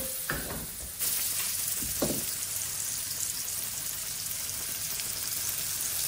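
Sliced mushrooms frying in butter in a hot frying pan: a steady sizzle that gets louder about a second in, with two light knocks in the first two seconds.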